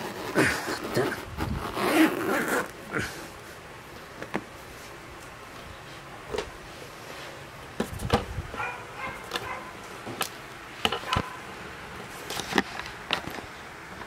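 Zipper on an Acura RSX seat's fabric back cover being pulled open with a toothpick through its pull: a quick run of short rasping strokes in the first few seconds, followed by scattered clicks and handling knocks on the seat.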